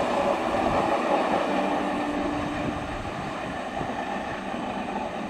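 Indian Railways EMU (electric multiple unit) local train running along the track, a steady rushing noise mixed with wind on the microphone, easing a little in the second half.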